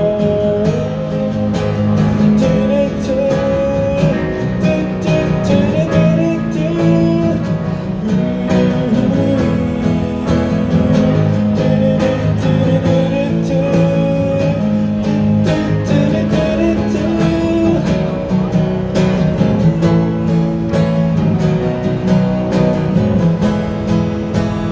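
Live band playing an instrumental passage of a Cantopop ballad: strummed acoustic guitar chords with a melody line moving above them.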